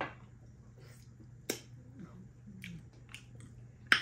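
Close-up eating sounds of people chewing food by hand: a series of sharp wet lip smacks and mouth clicks, the loudest about a second and a half in and again near the end.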